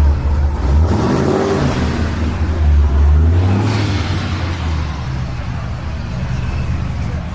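Supercharged C5 Corvette Z06 LS6 V8 running at low speed. It is heavier for about the first three and a half seconds, then eases off.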